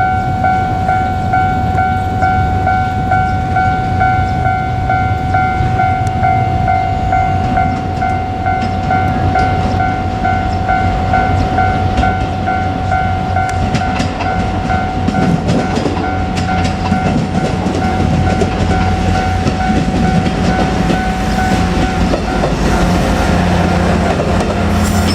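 Japanese level-crossing warning bell ringing in a rapid, steady, repeating tone, fading out about 22 seconds in. From about midway a JR Kyushu KiHa 200 diesel railcar passes with a low engine rumble and wheels clacking over the rail joints.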